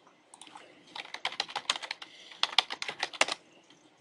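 Computer keyboard typing: quick runs of keystrokes in two bursts with a short pause between, as a search query is typed.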